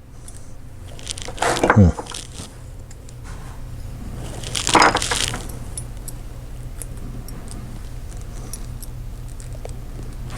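Two brief vocal sounds from a person in the house: one about a second and a half in, falling steeply in pitch, and another about four and a half seconds in, over a steady low hum.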